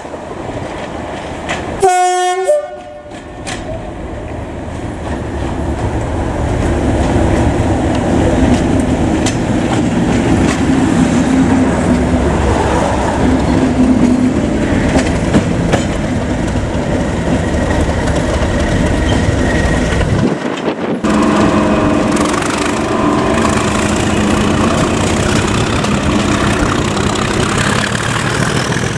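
English Electric Class 37 diesel locomotive: a short two-note horn blast about two seconds in, then its English Electric V12 diesel engine working hard under power ("thrash"), building up and running loud and steady, heard from the coach directly behind. The engine sound breaks off briefly about twenty seconds in and then carries on.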